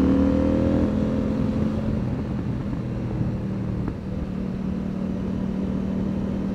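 CF Moto 800MT Explore's 799 cc parallel-twin engine under way, its note rising in the first second, then holding a steady cruise over road and wind noise. There is a brief dip in loudness about four seconds in.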